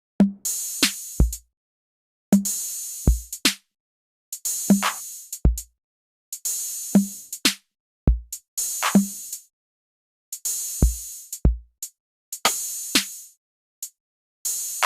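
Electronic drum-machine loop programmed in BandLab. A short pattern of a hissing crash, a mid drum hit and a deep bass-drum boom repeats about every two seconds, with brief silences between the repeats.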